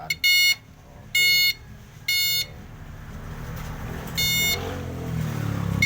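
Homemade circuit tester beeping in short high pips at uneven intervals, about five times, as it is touched to fuses in the fuse box; each beep means that fuse has power. A low rumble builds in the background from about halfway.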